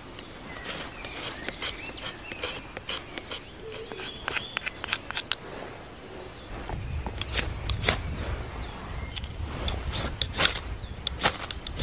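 Birds chirping in a forest for the first half. From about six and a half seconds in, a run of quick, sharp scraping strokes as a blade shaves tinder onto birch bark, over a low rumble.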